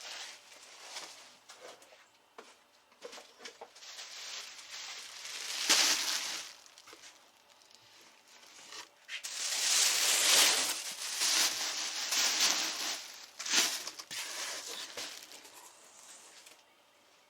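Rustling, crinkling and tearing of cardboard and packing material as a parcel is unpacked by hand, in irregular bursts that are loudest about six seconds in and again from about nine to fourteen seconds in.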